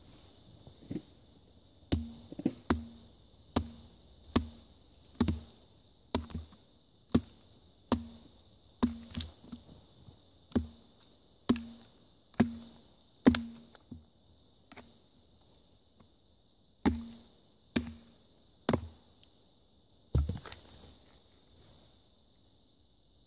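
Batoning a Gerber Bear Grylls Ultimate Survival Knife down through a standing log: about twenty sharp wooden knocks, roughly one a second, as the baton strikes the blade's spine and drives it into the wood, with a short pause before the last few blows.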